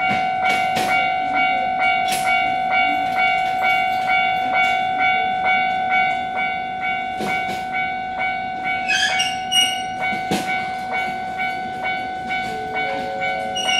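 Railway level-crossing warning bell ringing at an even rate of about three strikes a second, signalling an approaching train. Short high chirps come in about nine seconds in.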